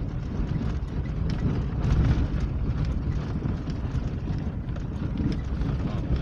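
A vehicle driving over a rough gravel road, heard from inside the cabin: a steady low rumble of engine and tyres with frequent irregular knocks and rattles from stones under the wheels and the body shaking.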